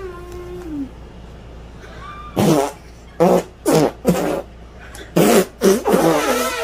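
Fake fart noises blown with the mouth against the hand and arm: about seven short buzzy raspberries in quick groups.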